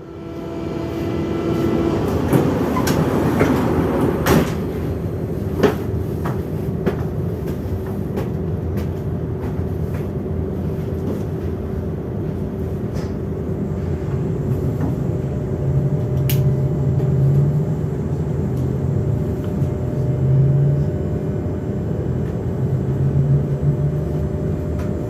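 Z 20877, a Z2N double-deck electric multiple unit, running with a steady electrical hum and rumble. Scattered clicks and knocks come in the first few seconds, and later a low motor tone swells and fades three times.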